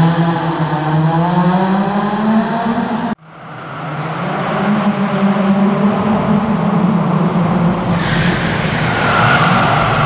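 A rally car's engine revving up steadily under hard acceleration. About three seconds in the sound cuts off abruptly, then returns as a second rally car, a Subaru Impreza, running at high revs. A high tyre squeal builds toward the end as it drifts.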